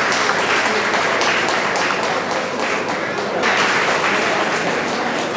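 Audience clapping steadily in a hall, swelling again about three and a half seconds in.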